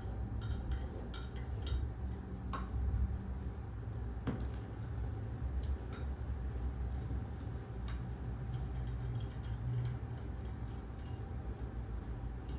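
Irregular light clinks and taps of hard parts of a lab extraction rig being handled and fitted together, over a steady low hum.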